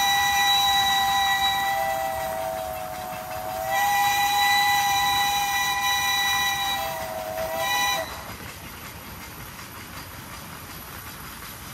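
Steam locomotive's chime whistle blowing two long blasts of several notes together. The second blast starts about four seconds in, and both sag slightly in pitch as they end. After about eight seconds the whistle stops, leaving the steady running noise of the train on the rails.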